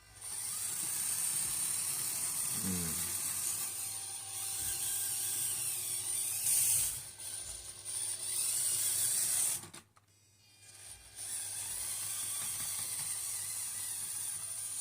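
Small electric motor and gear train of a Kyosho Mini-Z 4x4 radio-controlled crawler running, a steady mechanical whir. It stops for about a second roughly ten seconds in, then starts again.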